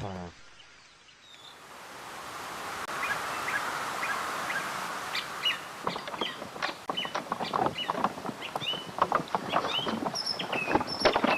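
Birds chirping in short high calls over a steady outdoor hiss that swells in over the first couple of seconds, joined in the second half by a rapid scatter of short clicks and knocks.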